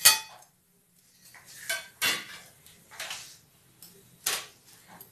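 Metal kitchen utensils clinking and knocking: a sharp clank at the very start, then four or five lighter knocks spaced about a second apart.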